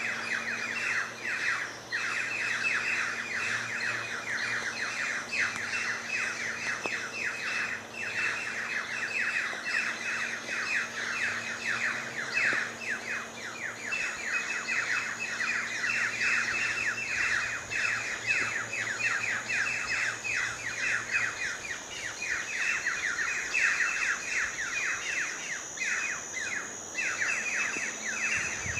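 A dense chorus of many birds chirping and chattering without pause, a rapid stream of short overlapping notes. A thin steady high whine sits above the chorus from about ten seconds in.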